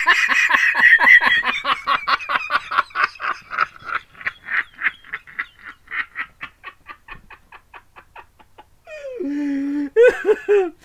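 High-pitched rapid giggling from a person laughing at his own fake sneezing, about five bursts a second, fading away over some eight seconds. Near the end comes a short held voiced sound.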